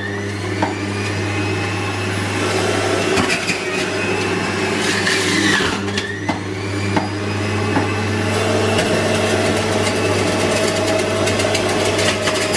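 Electric centrifugal juicer running, grinding greens and fruit as they are pushed down its feed chute. A steady motor hum carries a whine that rises and falls in pitch, with crackly grinding throughout.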